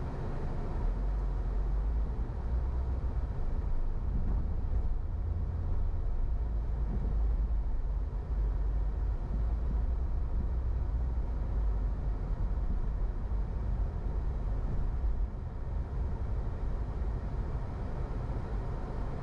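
Steady low rumble of a car driving: road and engine noise, with no distinct events.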